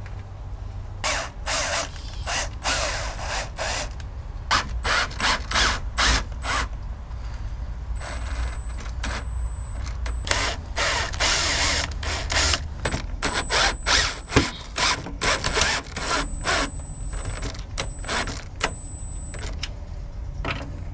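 Cordless drill/driver run in repeated short bursts of about a second, driving the screws that mount a condenser fan motor into its plastic shroud.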